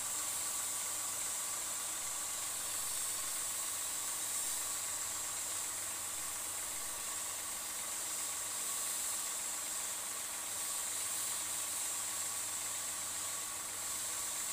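Fine water spray hissing steadily from hose nozzles as it mists straw-covered mushroom beds, over a faint steady machine hum.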